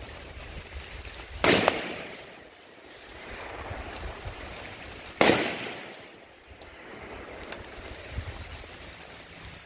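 Two rifle shots from an 18-inch AR-10 in .308, about four seconds apart, each dying away in a short echo, with a steady rushing noise between them.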